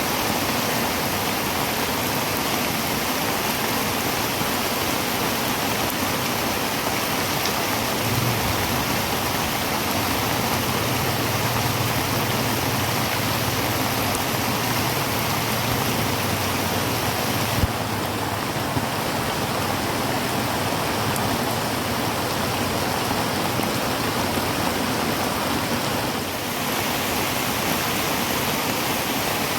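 Heavy rain falling on a tin roof, a steady dense hiss of drops. A low rumble runs underneath for several seconds around the middle, and a single click comes a little past halfway.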